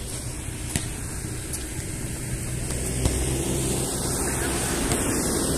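Steady low rumble, a little louder after about three seconds, with a few sharp thuds of a ball being kicked, the clearest just under a second in and at about three seconds.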